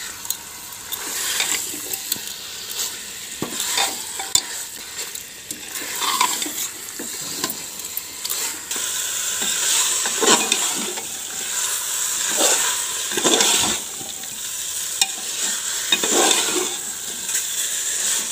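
Chicken pieces sizzling as they are fried in oil and masala in an open aluminium pressure cooker, with a metal spoon scraping and turning them against the pot every second or few seconds.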